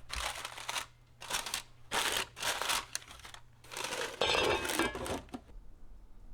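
Something crinkled or crumpled by hand in about four bursts of a second or less each, with a short last one near the end.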